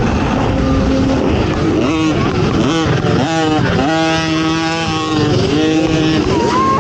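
ATV engine revving under race throttle, its pitch climbing and dropping several times as it accelerates and shifts, holding one steady pitch for about a second in the middle, over a constant rush of wind and track noise.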